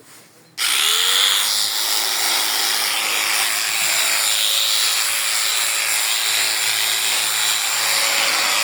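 Electric sheep shears switched on about half a second in: the motor's whine rises quickly, then settles into a steady high buzz that runs on.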